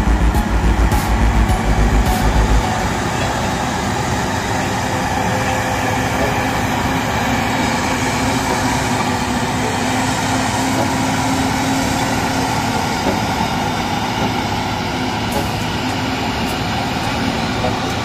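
Diesel engine of a Volvo motor grader running steadily under load as it grades mud. A heavy low rumble drops away about two and a half seconds in.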